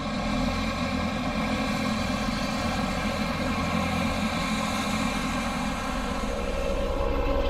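Helicopter engine and rotor running steadily, growing a little louder near the end.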